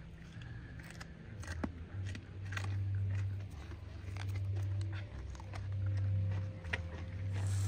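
Young white-tailed deer fawn biting and chewing a raw carrot, with scattered crisp crunching clicks over a steady low rumble.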